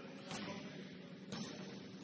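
Basketball bouncing twice on the court floor, two sharp thuds about a second apart, over faint gym background noise.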